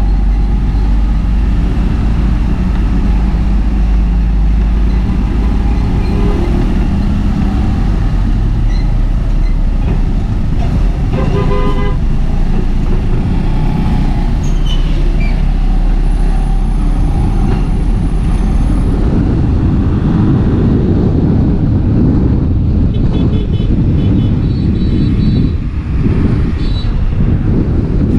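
Steady, loud rumble of a scooter ride through traffic: the Kymco scooter's engine and road noise heard from the rider's helmet. A vehicle horn sounds for about a second near the middle, and a few shorter, higher toots come near the end.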